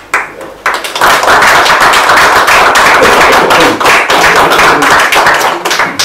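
Audience applauding: many hands clapping. It starts with a few claps and swells to full applause within the first second, then holds steady.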